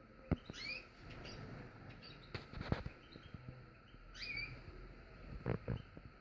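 Canary giving two short rising chirp calls, about half a second in and again near four seconds, amid scattered sharp clicks and knocks.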